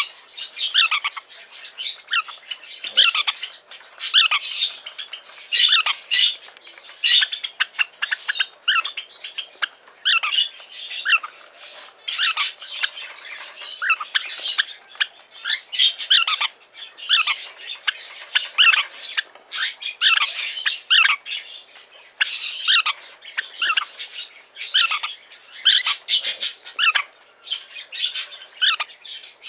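Lineolated parakeets calling nonstop in rapid, shrill chirps and squawks, many of them short downward-sliding notes.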